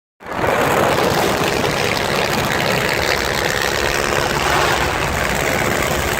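Motorcycle engines idling steadily together; the bikes are Honda Tornado 250 and KTM 200 single-cylinder four-strokes, one Tornado with a full aftermarket exhaust. The sound starts abruptly just after the beginning and stays even throughout.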